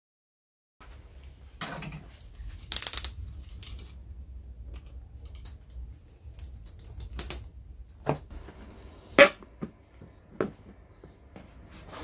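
A thin plastic detergent jug being handled and cut with scissors, with irregular crinkles, scrapes and sharp clicks of the plastic. The loudest is a snap about nine seconds in, over a low steady hum.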